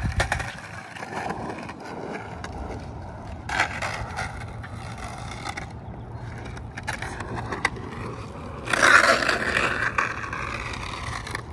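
Skateboard wheels rolling and scraping on a hard court surface as the board pivots off its nose and the wheels are dragged sideways through a carving arc. A louder drag of about a second and a half comes near the end, with a few sharp clicks along the way.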